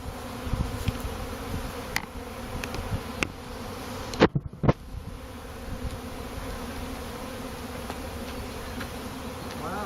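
A swarm of honeybees in flight: a steady buzzing hum of many wings. Two sharp knocks sound about four seconds in, louder than the buzz.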